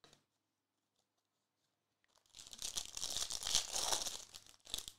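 Foil wrapper of a trading-card pack being torn open and crinkled by hand. It starts about two seconds in, after near silence, as a dense crackling rustle with a few sharp snaps near the end.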